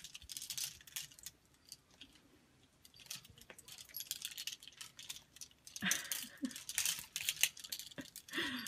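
Plastic clothes hangers clicking and clattering against each other and the closet rail as a cat climbs among them, in irregular clusters of sharp clicks that are densest in the second half.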